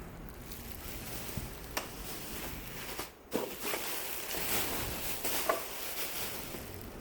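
Rustling and handling noises as a dress is turned around, with a few light clicks and knocks; the rustling grows stronger about halfway through.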